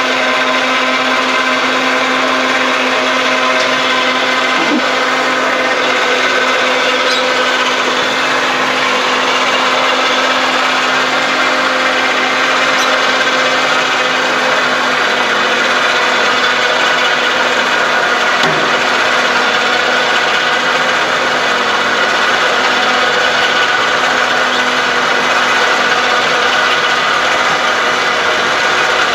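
Motor of an antenna tower lift running steadily as its carriage hoists a beam antenna up the tower, a constant mechanical hum and whir.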